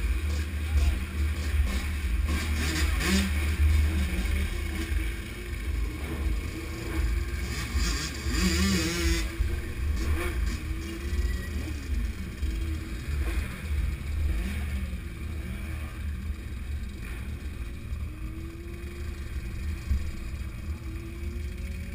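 Several motorcycles, a dirt bike and sport bikes, riding slowly together in a group, engines running with a heavy low rumble. Now and then an engine revs with a rising pitch.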